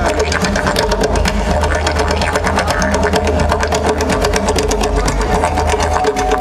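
Live ethno-trance band playing: fast, even drumming over a steady low drone.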